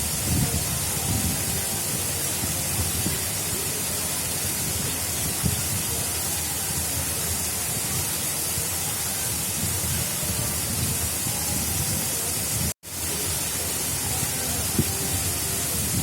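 Water of an artificial river flowing, a steady rushing noise with a low churning underneath. It cuts out completely for a split second about three-quarters of the way through.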